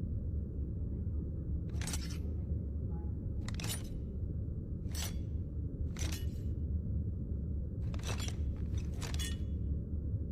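Katana sword sound effect: about six short, sharp blade strokes, one every second or two, over a steady low hum.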